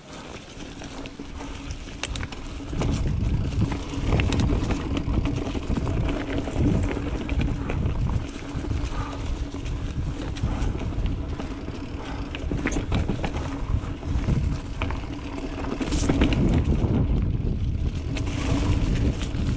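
Mountain bike being ridden over a dirt trail: wind buffeting the microphone over the rumble of the tyres, with scattered rattling clicks from the bike. It gets louder about three seconds in.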